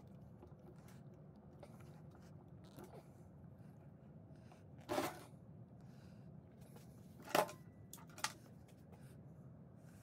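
Quiet hand-handling noises as a toothed rubber belt is fitted onto an old sewing machine's handwheel and a small electric motor is set against the machine: soft rubbing and light knocks, a short scrape about halfway through, then two sharp clicks a moment later.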